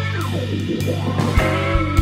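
Background music led by guitar, with held notes and sliding pitches over a few low beats.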